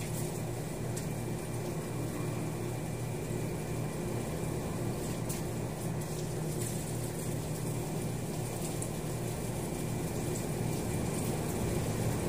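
A steady low hum runs throughout, with scattered small clicks and knocks from fish and ice being packed into a cooler.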